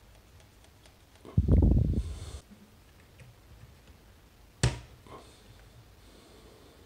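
Handling noise as a mechanical micropipette is picked up and worked at a bench: a loud low knock and rumble for about a second, about a second and a half in, then a single sharp click a few seconds later, with a fainter one just after.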